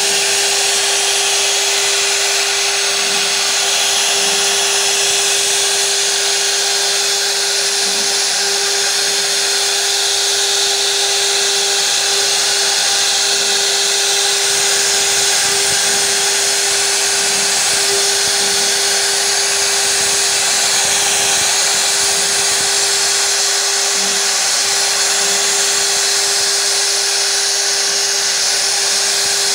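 CNC router spindle running steadily with a high whine, its bit cutting a relief pattern into a wooden panel with a continuous hiss of cutting.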